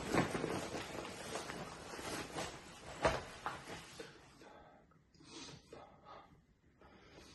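Rustling and crumpling of a fabric bag being handled and shaken out, with small clicks and one sharp knock about three seconds in. It then drops to quieter short breathy sounds.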